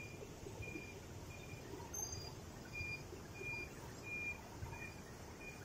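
Steady rush of fast-flowing water over a concrete spillway, with a short high-pitched beep or chirp repeating about every two-thirds of a second.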